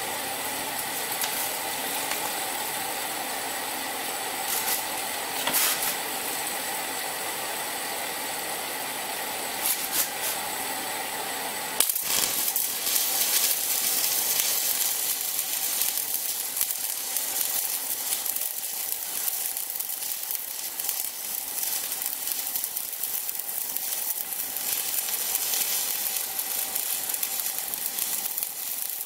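Stick (shielded metal arc) welding with a 2.6 mm Nikko Steel RD-460 electrode on a repaired Rhino inverter welder. For the first twelve seconds there is only a steady hiss with a couple of brief taps. Then the arc strikes and crackles and sizzles steadily to the end, a test weld showing that the machine holds an arc.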